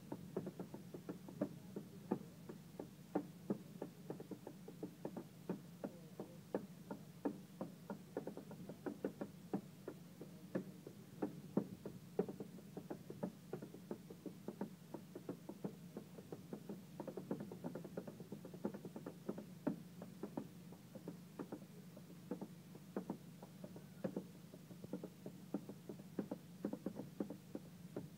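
Clogs striking a wooden board in solo clog-dance barge steps: a fast, uneven rhythm of sharp knocks, several a second, with a steady low hum underneath.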